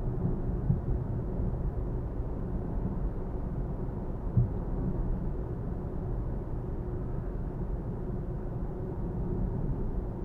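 Steady low rumble of a Nissan Fuga 370GT (VQ37VHR V6) on the move, engine and road noise heard from inside the car. A short thump comes under a second in and a stronger one about four and a half seconds in, like the tyres hitting bumps.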